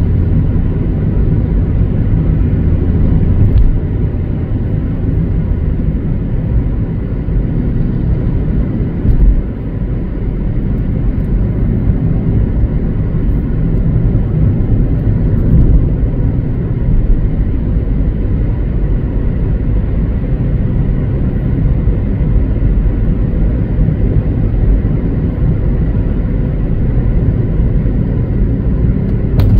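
Steady low road noise of a car being driven: engine and tyre rumble, with a brief louder moment about nine seconds in.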